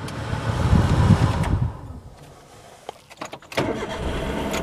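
Car engine being started from inside the cabin after a week unused: a loud burst of cranking and the engine catching in the first two seconds, then a steadier low running sound with a few sharp clicks from about three and a half seconds in.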